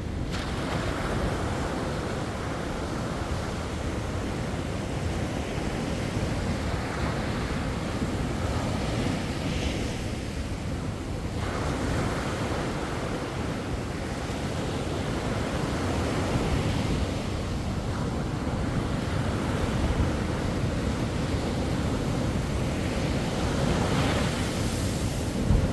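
Sea waves breaking and washing up on a beach: a continuous rush of surf that swells and eases every few seconds.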